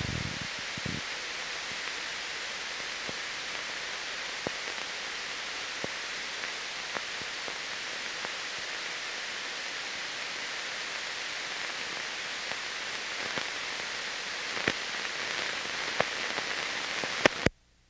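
Steady hiss with scattered clicks and pops, the surface noise of an old film soundtrack transfer. It cuts off suddenly near the end.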